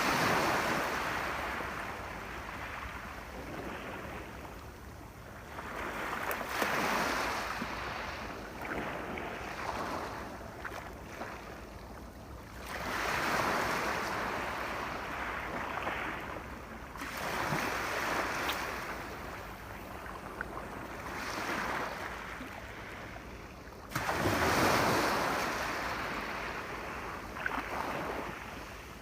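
Sea waves breaking on a shore: a rush of surf that swells roughly every five to six seconds and ebbs between.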